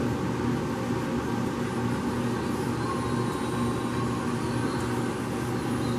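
Steady low machine hum with a hiss underneath.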